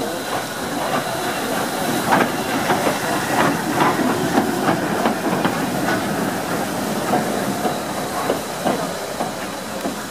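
Metropolitan Railway E Class No.1, a 0-4-4 steam tank locomotive, running slowly with a steady hiss of steam and irregular clanks and knocks from its wheels and motion.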